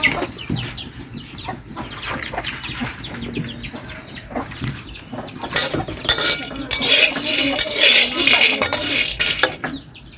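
Metal spatula scraping and stirring dried chilies around a steel wok as they dry-roast, loudest from about six to nine and a half seconds in.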